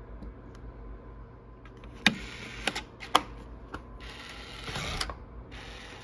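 Electronic smart deadbolt's motorised mechanism running after its reset button is pressed: a few sharp clicks and two short whirring runs, one of about half a second and one of about a second.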